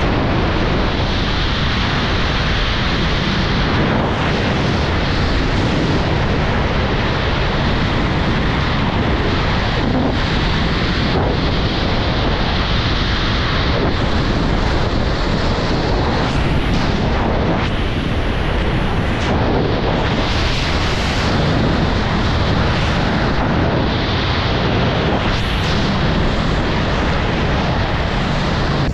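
Loud, steady rush of wind buffeting the microphone of a camera carried in wingsuit flight, rising and easing slightly now and then.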